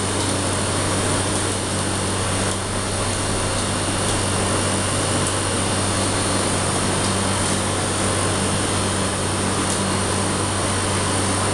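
Gas-heated cotton candy machine running as floss is spun: a steady low motor hum from the spinning head over an even hiss.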